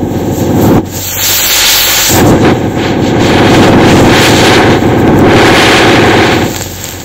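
Mass of matches in a hanging match pyramid flaring up: a loud rushing hiss of burning match heads full of crackle. It swells about two seconds in, holds, and eases off near the end.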